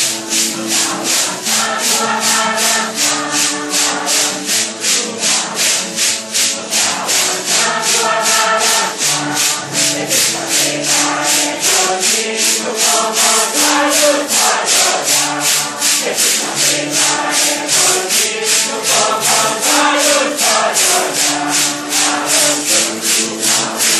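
Group of voices singing a Santo Daime hymn in unison, accompanied by maracas shaken in a steady beat of about two and a half strokes a second.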